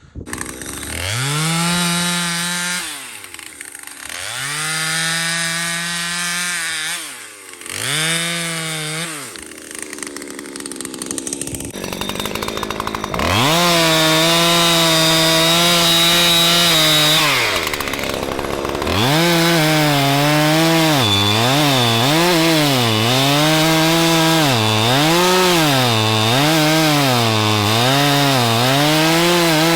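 Husqvarna 372XP clone two-stroke chainsaw revved to full throttle in three short bursts, dropping back to idle between, then held at high revs for a long stretch while cutting small trees, its pitch dipping and recovering over and over from about a third of the way in.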